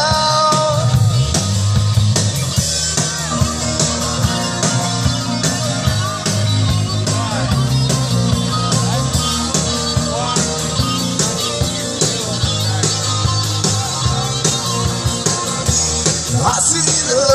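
Live rock band playing: electric guitars and a full drum kit keeping a steady beat, in a stretch without lyrics.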